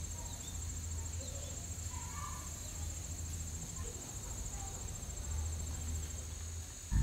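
Crickets chirring steadily in a high, fine trill, over a low hum. Loud music with deep bass cuts in suddenly at the very end.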